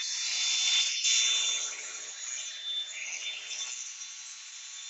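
Cordless 4.5-inch angle grinder with a 60-grit flap disc grinding along the steel cutting edge of a Honda HRR216 lawn mower blade to sharpen it, over the grinder motor's steady high whine. The rougher grinding eases off about three-quarters of the way through, leaving mostly the motor's whine.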